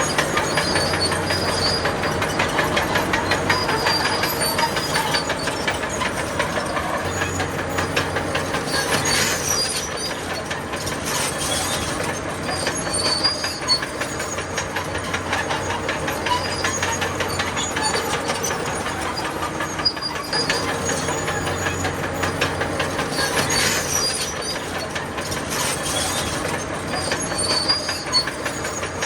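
Crawler bulldozer working: its diesel engine runs steadily under load while the steel tracks clatter rapidly, with high-pitched track squeals now and then.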